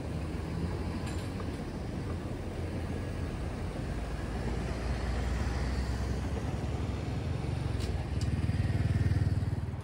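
Cars driving slowly past one after another over a level crossing, a steady low engine and tyre rumble. Near the end a motor scooter passes close by, the loudest moment.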